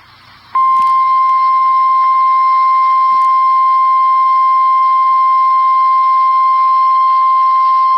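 Emergency Alert System attention signal: the National Weather Service's single steady 1050 Hz warning alarm tone, loud and unbroken, starting about half a second in. It signals that a weather warning, here a severe thunderstorm warning, is about to be read.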